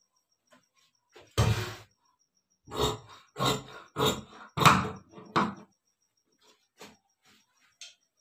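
Tailor's scissors cutting through dark suiting cloth on a cutting table: about six separate cuts, one about a second and a half in and the rest close together between about three and five and a half seconds in.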